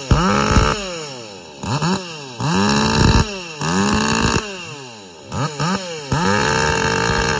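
Ported 43cc Echo two-stroke chainsaw revved in the air: several throttle blips, each rising quickly to full speed, held briefly, then falling back. Near the end it is held at steady full throttle.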